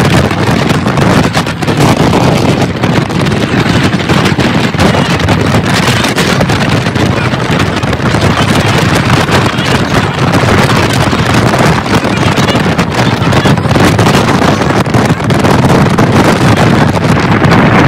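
Wind buffeting the microphone inside a BMW convertible driven with its top down at highway speed: a loud, steady rush over the car's road noise.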